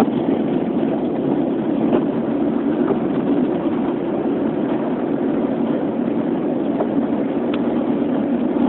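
Steady road and engine noise of a car driving, heard from inside the cabin, with a few faint ticks.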